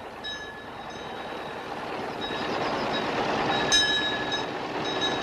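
Vintage 1912 open fire engine driving past, its running noise swelling as it comes near. Bright metallic ringing strikes several times over it, the sharpest about three and a half seconds in.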